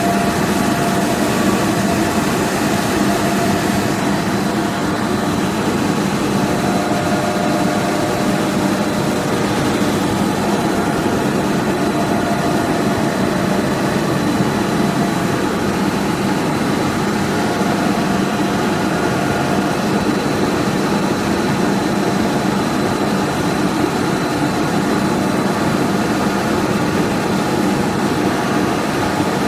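Snack pellet production line machinery running steadily: a constant, even mechanical hum with steady tones and a faint high whine, unchanged throughout.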